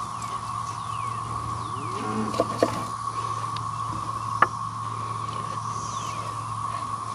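Steady drone of a cicada chorus, with a few light knocks of a knife against a wooden cutting board as steaks are sliced, the sharpest knock about halfway through.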